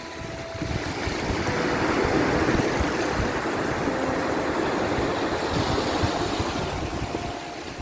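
Sea surf: a wave's rushing wash that swells about two seconds in and slowly ebbs away.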